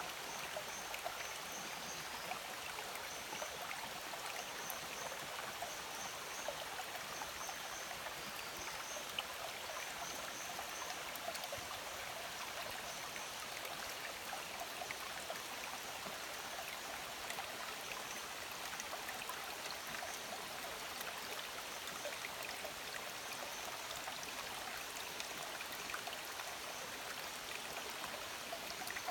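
Shallow rocky forest stream flowing steadily over pebbles and stones. Short high chirps repeat in small groups through the first half.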